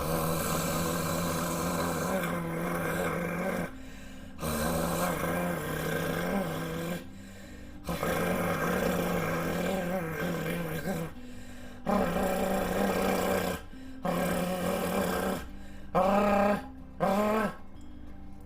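A man's demonstration of the tongue trill (rolled R): breath-driven, snore-like rattling vibrations worked toward the tongue tip to make a trilled R. There are five sustained ones lasting one to three seconds each, then two short ones near the end.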